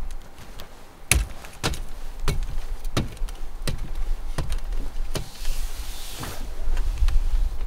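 Boots climbing a rooftop-tent ladder, a sharp knock on each rung about every two-thirds of a second. Near the end comes a rustle of tent fabric as the climber gets into the tent, followed by a few more knocks.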